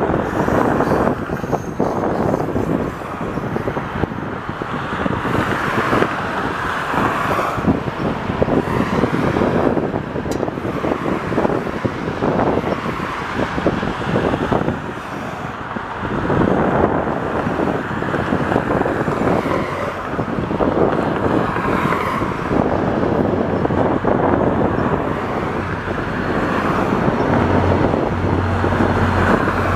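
Road traffic on a multi-lane highway mixed with a VIA Rail passenger train of stainless-steel cars rolling past on the tracks alongside; the noise swells and ebbs as vehicles go by. A steady low hum comes in near the end.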